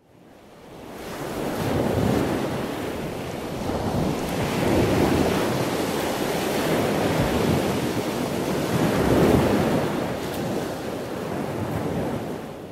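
Sea surf: waves washing in, fading in at the start and then swelling and ebbing every few seconds.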